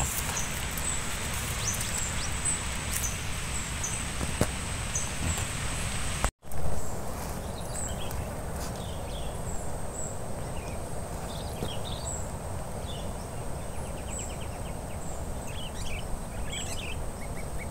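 Steady outdoor background noise with faint, scattered bird chirps and a short trill. The sound cuts out for an instant about six seconds in.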